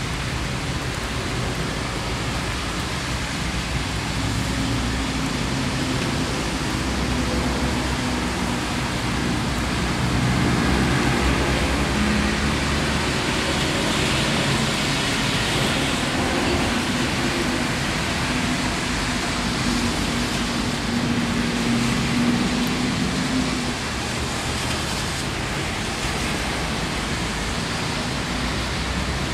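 Steady rain hissing on wet ground and puddles. A motor vehicle's engine runs underneath from a few seconds in and fades out a few seconds before the end.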